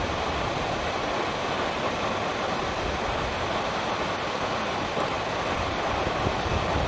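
Steady rush of water pouring over the crest of Naruko Dam, a concrete arch dam, in its 'sudare' release: several side-by-side curtains of water falling down the dam face and crashing into the pool at its foot, with a low rumble beneath.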